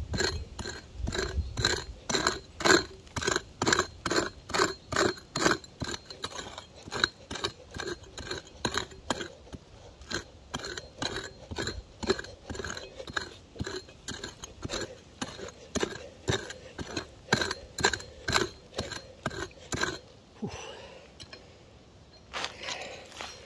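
Small hand pick chopping and scraping into hard gravelly soil, a steady run of short crunching strokes about two to three a second that stops near the end.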